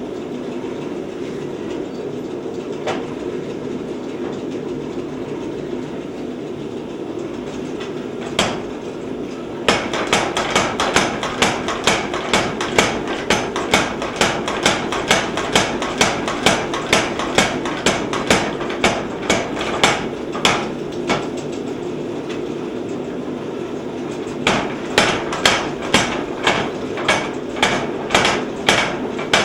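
Little Giant 50-pound trip hammer drawing out steel bar stock, pounding in fast, even runs of blows at about three a second, with a pause of a few seconds between runs. A steady mechanical hum runs underneath and fills the first ten seconds before the blows start.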